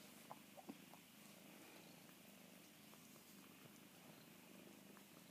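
Cornish Rex kitten purring steadily and faintly, close to the microphone. A couple of soft clicks come in the first second.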